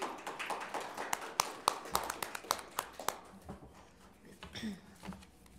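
A small group of people clapping briefly, an irregular patter of hand claps that dies away about three seconds in.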